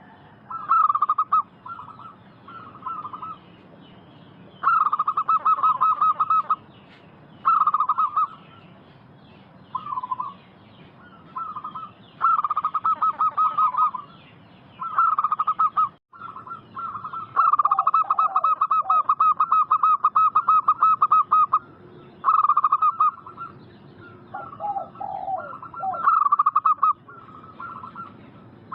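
Local zebra doves (perkutut) singing: repeated bursts of rapid trilled cooing, most a second or two long and one running about four seconds, with a few lower coos twice in between.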